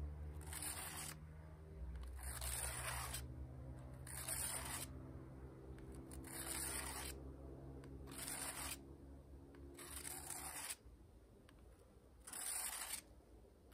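Bushcraft knife blade pushed along a diamond sharpening plate in slow strokes, a short scraping rasp about every two seconds, about seven in all, honing the bevelled edge. A low steady hum runs underneath and drops away near the end.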